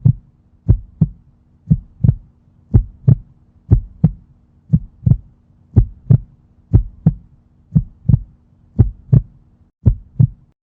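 Heartbeat sound effect: a double thump about once a second, lub-dub, over a steady low hum, cutting off suddenly near the end.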